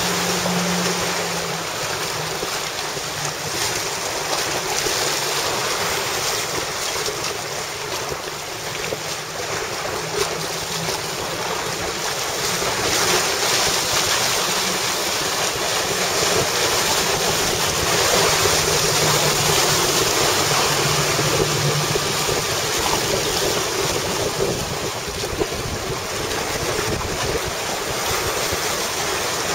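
Wind buffeting the microphone over rushing, splashing water from boats running through rough open water. A faint engine hum wavers in pitch underneath.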